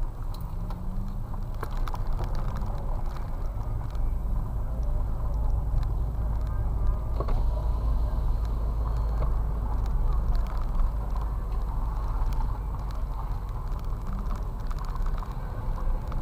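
Car engine and tyres running at low speed, a steady low rumble heard from inside the car's cabin.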